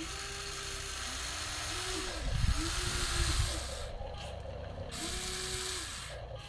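Electric motors of a radio-controlled Huina 1953 excavator whining in several short runs, each rising in pitch, holding and falling away as the machine moves, with louder low rumbling about two to three and a half seconds in.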